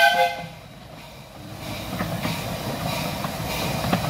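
A short steam whistle blast from the 12¼-inch gauge miniature steam locomotive Mad Bess at the start, then the running noise of the locomotive and its carriages on the track, growing louder as the train approaches.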